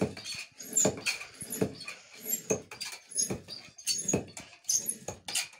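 Hand air pump worked in a steady rhythm, a little more than one stroke a second, each stroke a breathy wheeze of air as it inflates a car-tyre inner tube.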